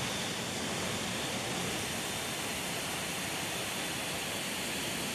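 Steady rushing noise of air and engines inside a C-17 transport's cargo bay with the paratroop jump door open.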